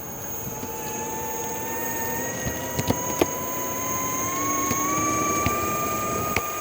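A vehicle's motor running with a whine that rises slowly in pitch as it gathers speed, with a few scattered sharp ticks.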